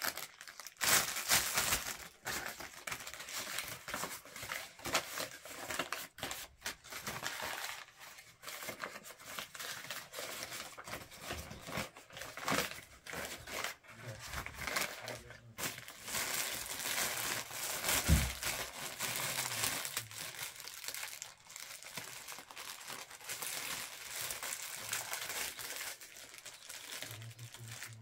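Paper and clear plastic wrapping crinkling and rustling as ceramic cups are unwrapped from a cardboard box, with a brief low thump about two-thirds of the way through.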